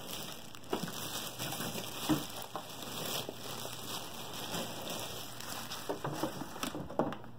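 Thin plastic packaging bag crinkling and rustling as it is handled and pulled off a boxed appliance, along with cardboard packing being shuffled: a continuous crackle with scattered sharper crackles.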